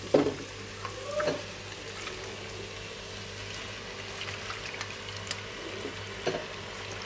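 Marinated chicken pieces scooped by hand into hot masala in an earthenware pot: soft wet plops and a faint sizzle, over a steady low hum.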